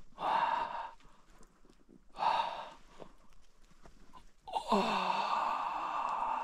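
A person breathing out heavily three times, about two seconds apart. The last is a long sigh that starts with a short falling voiced sound.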